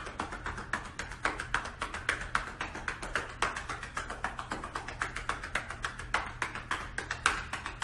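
Hands rapidly patting a person's back, several quick pats a second: chest physiotherapy percussion, done to break up and drain mucus from the lungs.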